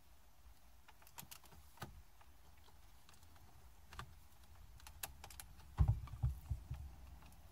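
Light plastic clicks and taps as a magnetic phone holder is handled and fitted into the cassette-player slot of a Toyota Prius dashboard, with a few dull knocks about six seconds in as it is pressed home.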